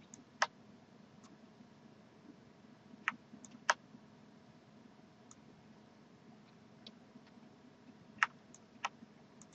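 Computer mouse clicks in pairs about half a second apart, a press and release for each drag, with faint room hum between them.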